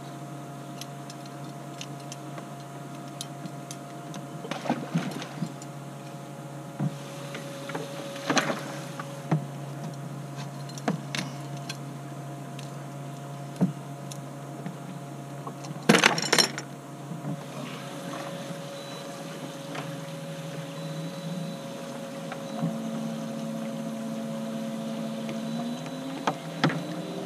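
Electric boat motor humming steadily, its pitch stepping up about three-quarters of the way through as it speeds up. Scattered knocks and rattles from gear in the aluminium jon boat, with a louder clatter a little past halfway.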